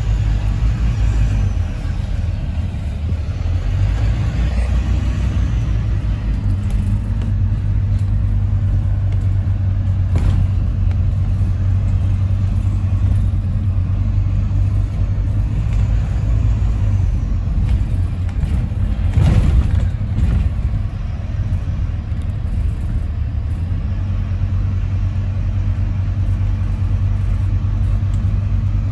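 Double-decker bus engine running with a steady low drone, heard from inside on the upper deck as the bus moves slowly. Two brief knocks come through along the way.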